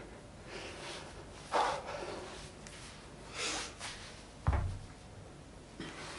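A person doing walking lunges with dumbbells: two heavy breaths in the first half, then the dull thud of a foot landing on the floor about four and a half seconds in, the loudest sound, followed by a lighter knock.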